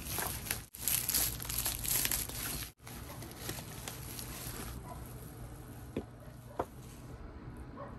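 Plastic bubble wrap crinkling as it is cut with scissors and pulled off a cardboard gift box, loudest in the first three seconds. It is followed by fainter handling with two light clicks.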